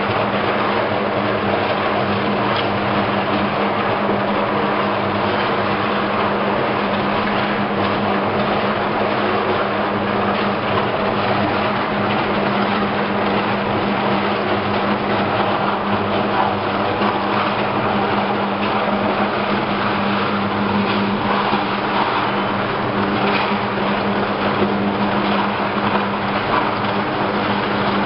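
Ladle furnace electrodes arcing into the steel bath: a loud, steady, dense crackle over a strong, steady low hum.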